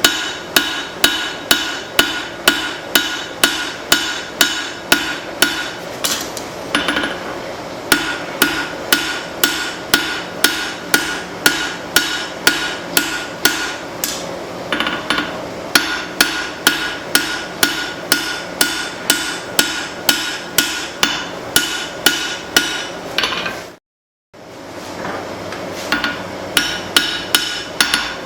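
Blacksmith's hand hammer striking hot leaf-spring steel on an anvil, forging bevels into a cleaver blade: steady, ringing blows about three a second, broken by a few short pauses.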